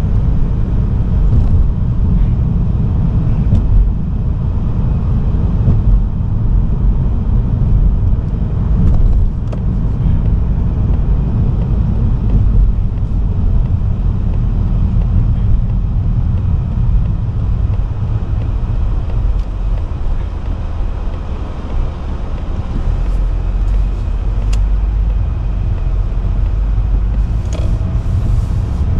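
A car driving, heard as a steady low rumble of road and engine noise.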